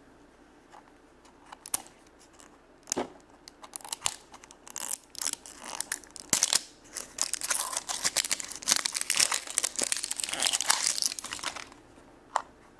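A FASHEMS blind-bag packet being torn open and crinkled by hand: a few scattered crackles at first, then several seconds of dense crinkling that stops shortly before the end.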